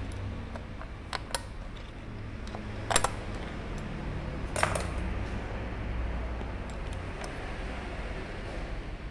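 Small steel parts of a Mercedes 911 diesel injection pump clinking against metal as they are handled and set down during disassembly: a few scattered sharp clinks, the loudest about three seconds in and another just before five seconds. A steady low hum runs underneath.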